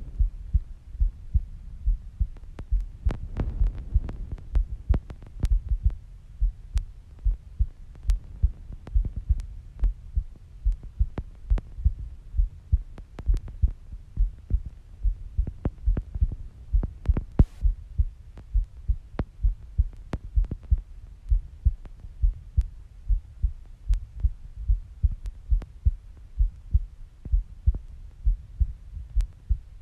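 A woman's heartbeat recorded close to the chest: steady, repeated low thumps of the beats over a constant low rumble, with a sharp click on many of them.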